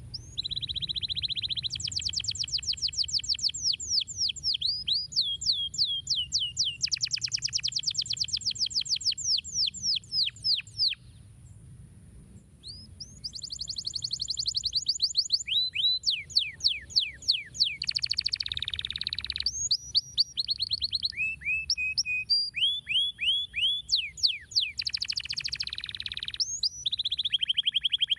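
Domestic canary singing a long song of fast trills, each made of rapidly repeated falling notes. It breaks off for about two seconds near the middle, then resumes with more trills and short runs of clipped notes.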